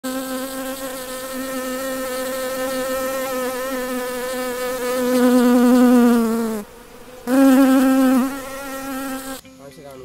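A bee buzzing in flight, a steady hum with a low buzzing pitch. It swells louder about five seconds in, sags in pitch and breaks off for about half a second, then comes back loud and stops near the end.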